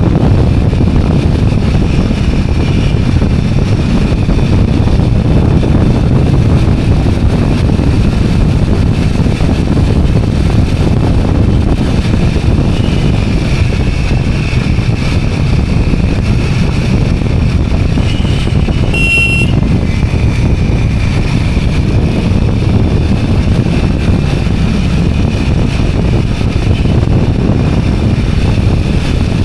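Motorcycle or scooter riding along, with steady engine, road and wind noise on the microphone. A brief high-pitched beep comes about two-thirds of the way through.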